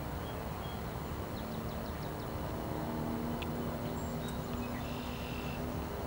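Steady low rumble of distant city traffic, with a faint engine hum coming in about halfway through. Small birds call faintly over it: a quick run of about five high chips a second and a half in, and a short high note near the end.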